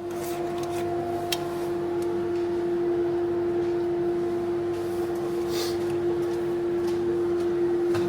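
A machine running with a steady, constant-pitched hum, with a few faint clicks and a brief hiss partway through.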